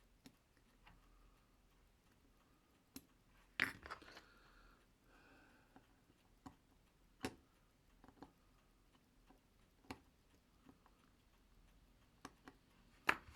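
Light, scattered clicks and taps of small watchmaker's tools against a pocket watch movement, about a dozen in all, with the sharpest about three and a half seconds in and just before the end.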